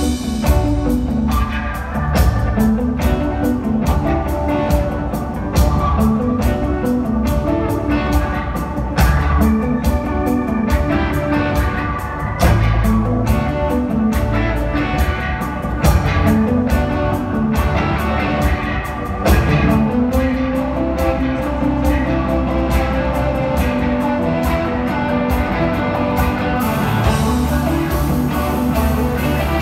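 Live blues-rock band playing: an electric guitar through stage amplifiers over bass and a drum kit. Near the end the sharp drum hits drop away while the guitar and bass carry on.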